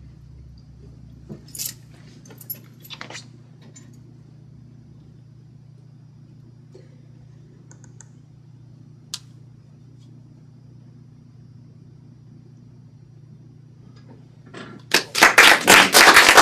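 Faint rustles and a few small clicks over a low steady room hum, then, near the end, a small audience breaks into loud applause.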